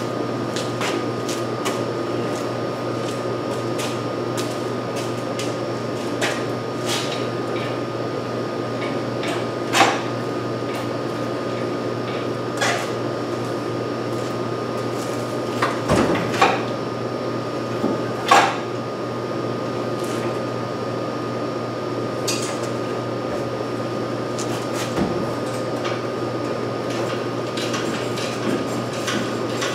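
Hand tools and metal parts clinking and knocking now and then while someone works in a car's engine bay, a handful of sharp clicks spread irregularly over a steady droning hum.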